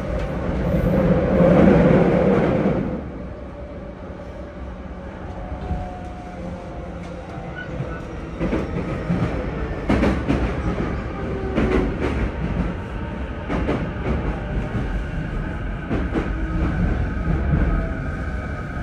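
Cabin running sound of a JR E233-1000 series electric train: a steady rumble of wheels on rail with a louder rush in the first few seconds, then rail-joint clicks every second or two and a faint steady whine from the Mitsubishi IGBT-VVVF traction equipment.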